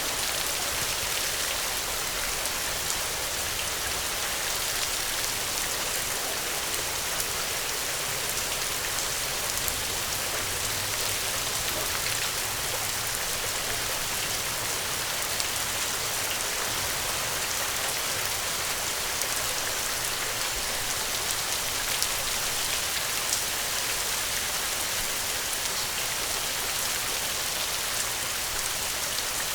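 Steady rain falling and pattering on a surface, an even hiss with scattered individual drop ticks.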